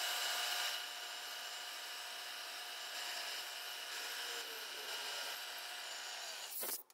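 Milling machine spindle running with a steady whine while a small drill bit cuts holes into the corners of a metal casting. It is louder for the first second and cuts off abruptly near the end.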